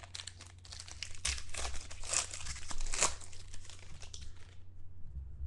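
A trading-card pack wrapper being torn open and crinkled, a busy run of crackles and rips that dies away about four and a half seconds in.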